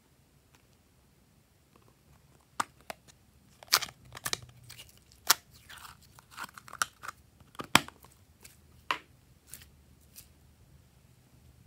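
Gold glitter slime being pulled out of its plastic tub and squeezed by hand, giving sharp sticky pops and crackles at irregular intervals. They start about two and a half seconds in and thin out near the end.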